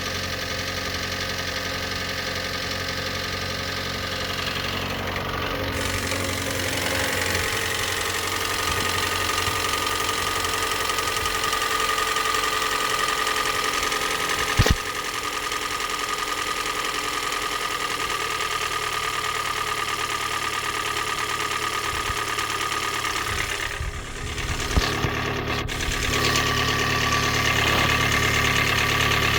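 Hyundai i30 1.8-litre petrol engine running with a knocking sound that the owner takes for piston slap. A single sharp thump comes about halfway through, and the engine note changes briefly near the end.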